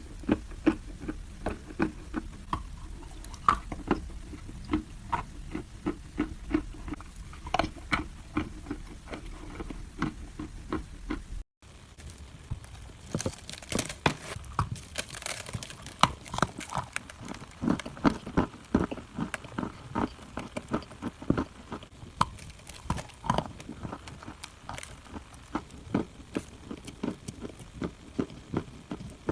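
Close, dense crunching and crackling of dry clay chunks, an irregular run of sharp snaps. There is a brief dropout about eleven seconds in, and the crunches are louder and denser after it.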